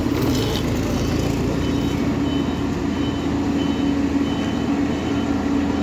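Heavy truck engine running steadily, with a reversing alarm beeping at an even pace above it.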